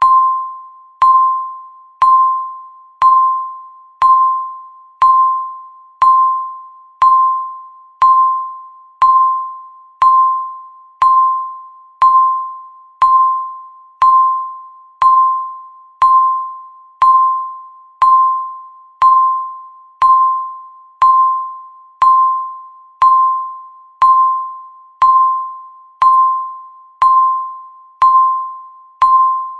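Countdown timer's tick sound: a short, bell-like electronic ding struck once every second, each fading quickly, in an even, unbroken rhythm.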